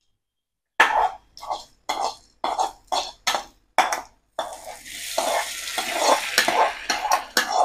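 Steel spoon scraping a small steel kadai in short strokes, about two a second, as hot tempering of mustard seeds, urad dal, shallots and curry leaves in oil is emptied into coconut chutney. From about halfway the hot oil hitting the chutney sizzles under the scraping.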